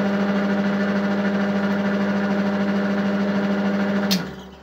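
Metal lathe running with a steady motor hum while an M6 tap in the tailstock drill chuck threads the spinning part. About four seconds in there is a sharp click and the hum stops.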